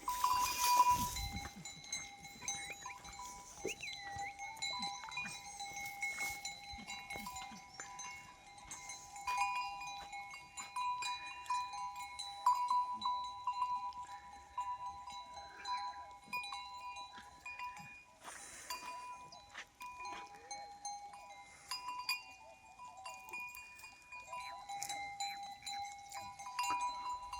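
Goats feeding on a tree: many short scattered clicks and snaps over a steady high tone that holds throughout.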